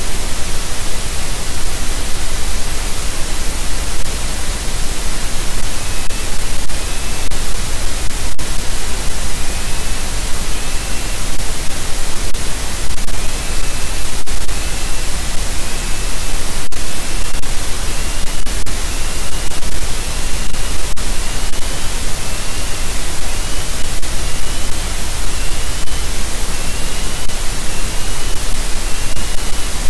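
Loud, steady static hiss from the nest camera's microphone. Faint short rising chirps, repeated about once a second, start about six seconds in.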